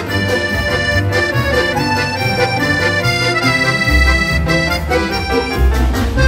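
Background music led by an accordion melody over a steady bass line.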